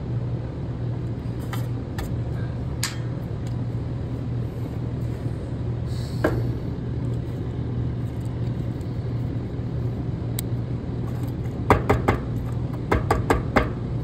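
Steady low hum of a second air-conditioning condensing unit running. Near the end there is a run of sharp clicks and taps as the unit's wiring is handled.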